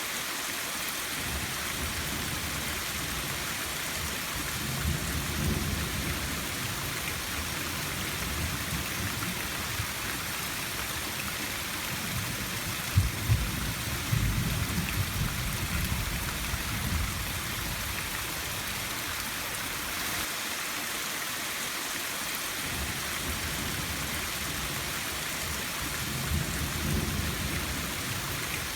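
Steady rain falling, a constant hiss, with low thunder rumbling three times: briefly about five seconds in, most strongly in the middle with a sharp crack or two, and again near the end.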